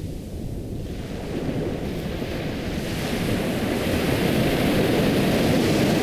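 Ocean surf: a wave washing in, the rush building steadily and loudest near the end.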